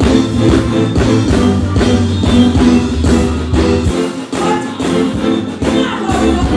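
Live band playing with electric guitar, drum kit and bass in a steady rhythm. The bass drops out for about a second around four seconds in, then comes back.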